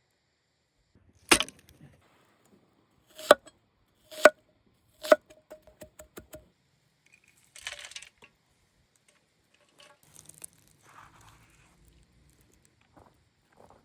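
Four sharp knocks about a second apart, each with a short ring, followed by a quick run of lighter clicks and then faint rustling and scraping.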